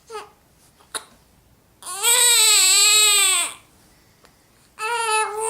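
Four-week-old baby crying: one long wavering cry about two seconds in, then another cry starting near the end.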